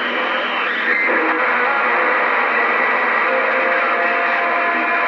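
Stryker SR-955HP CB radio receiving a strong incoming signal on the skip: loud static with steady whistling tones over it, another whistle coming in about three seconds in, and no clear voice.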